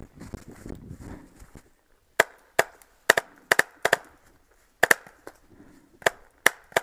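Rustling steps through dry leaf litter, then a paintball marker firing about ten sharp shots, some singly and some in quick pairs, at an irregular pace.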